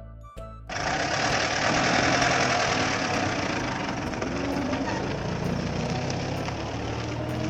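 A motor vehicle's engine running steadily, a rough noise over a low hum, starting suddenly about a second in as a short plinking music tune cuts off.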